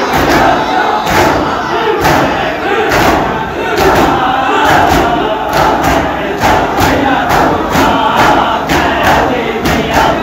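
Large crowd of mourners chanting together, with sharp slaps repeating about twice a second: the beat of matam, chest-beating in mourning for Imam Hussain.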